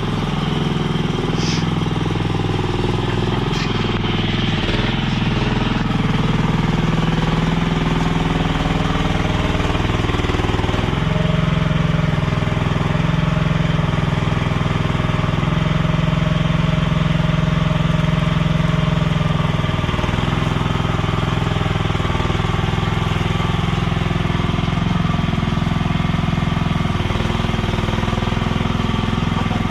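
Chinese mini skid steer's small engine running steadily while the machine works, its pitch shifting slightly a couple of times.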